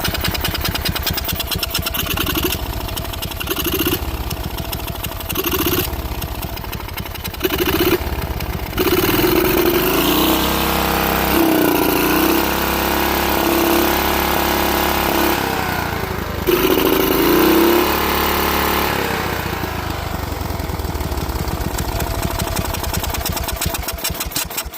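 Small lawnmower engine running rough and lumpy, like an engine with a cam. It picks up speed for several seconds in the middle, falls back to uneven running and cuts off at the very end. The owner blames cooked valves helped along by a bad carburetor.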